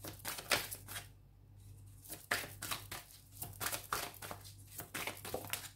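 A deck of cards shuffled by hand: an irregular run of soft riffling and clicking, with a steady low hum underneath.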